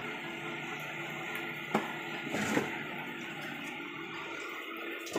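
A buffalo being hand-milked: milk squirting from the teat into a small mug as a steady hiss. Two short sharp knocks come near the middle.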